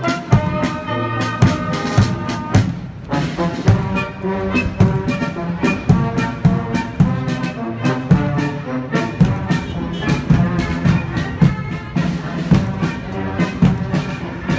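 Marching brass band playing a march in the open street, trumpets and other brass over a steady beat of about two strokes a second.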